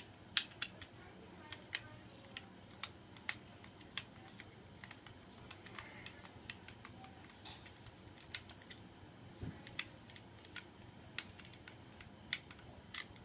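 Irregular light clicks and taps of small plastic and metal parts being handled and fitted together while a mini portable ceiling fan is put back together.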